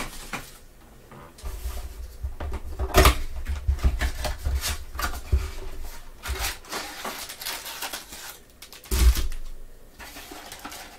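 Cardboard trading-card box being handled and opened: rustling and scraping of cardboard with scattered clicks, and a couple of heavier knocks about three seconds in and near the end as the foil packs tip out onto the table.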